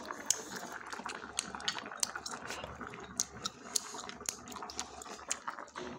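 Fish-bladder hotpot broth boiling in its pot: a steady bubbling hiss with many small sharp pops and clicks scattered through it.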